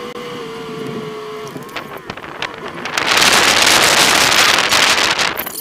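Off-road vehicle driving over sand dunes, heard from inside the cabin: a steady engine whine for the first second and a half, then a loud rushing noise from about three seconds in that lasts about two seconds and cuts off abruptly.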